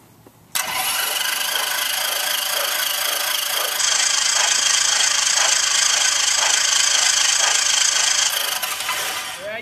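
Lycoming IO-360 four-cylinder aircraft engine being turned over by its starter without firing, running steadily for about nine seconds with a faint regular pulse. This is a pre-oiling crank to bring up oil pressure before the first start, and the pressure has not yet registered.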